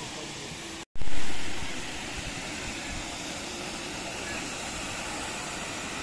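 A small waterfall cascading over rocks: a steady rush of water that comes in loud after a sudden break about a second in, then settles to an even level. People's voices are heard faintly behind it.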